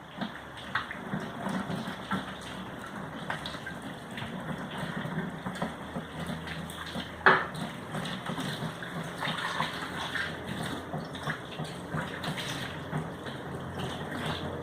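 Water running, with scattered small knocks and clatter and one sharp knock about seven seconds in.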